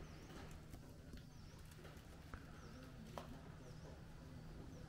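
Quiet footsteps of a walker with a few sharp knocks, while a bird repeats a short dipping chirp about once a second over a low steady hum.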